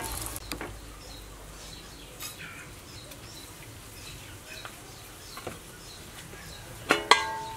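Quiet outdoor background with a few faint bird chirps. Near the end, a metal clatter with a short ringing tone, as the aluminium lid is set back onto the steamer pot.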